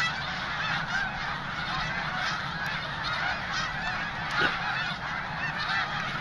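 A large flock of snow geese calling all at once: a dense, continuous chorus of overlapping honks and yelps.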